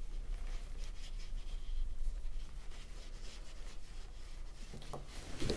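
Faint soft rustling and rubbing of cotton yarn being drawn through and over a crochet hook as a double crochet stitch is worked, over a low steady hum.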